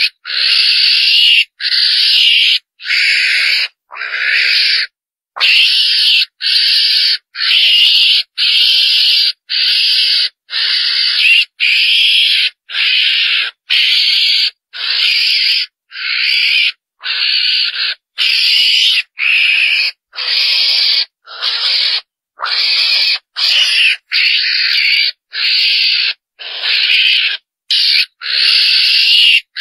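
Lure recording of a chồn đèn, a small mongoose, calling: harsh, raspy squeals repeated about three every two seconds, each cut off sharply. It is used to draw more of these animals in.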